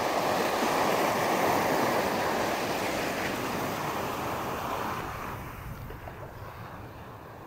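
Small waves washing through shallow surf, a steady rush that dies down over the last couple of seconds.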